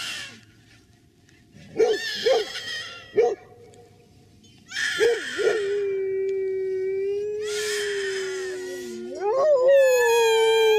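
A dog howling along with shrill squeals blown on a blade of grass between cupped hands. Short yelps and squeals come first, then the dog holds one long steady howl from about halfway, and near the end it slides up into a new howl.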